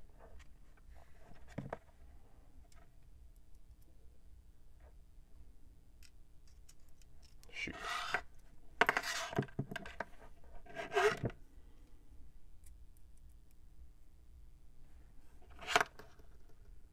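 Small screws and plastic housing parts of a Mares Genius dive computer being handled and screwed back together with a precision screwdriver. There are scattered faint clicks, a spell of clattering and scraping from about eight to eleven seconds in, and one sharp click near the end.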